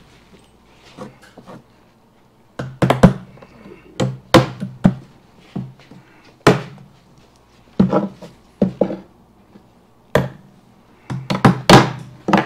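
Hammer driving nails through a beaver hide into a wooden stretching board: irregular sharp strikes, often two or three close together, each with a brief low ring from the board.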